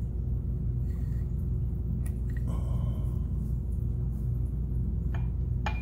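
Steady low background hum, with a few faint light clicks.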